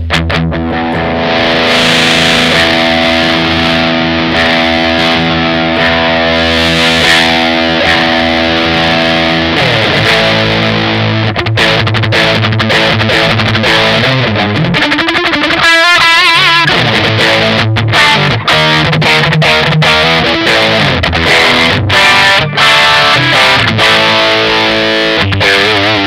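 Electric guitar played through a Vox StompLab multi-effects pedal on a high-gain distorted amp model. A chord is held and left to sustain for about nine seconds, then the playing moves to changing notes and quicker riffing, with one wavering, bent note about two-thirds of the way through.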